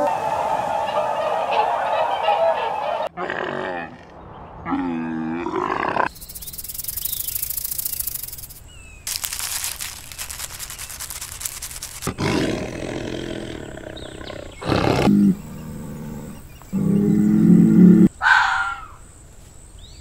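A run of short animal call clips cut back to back: swan calls for about the first half, then squirrel calls in the second half, each snippet starting and stopping abruptly.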